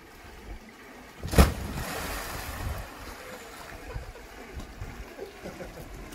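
A person jumps into a swimming pool onto an inflatable ring. There is one loud splash about a second and a half in, then water sloshing for a moment before it settles to gentle lapping.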